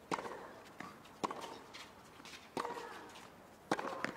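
Tennis rally on a hard court: rackets striking the ball with sharp pops about once a second, each ringing briefly, with lighter ball bounces and shoe sounds in between.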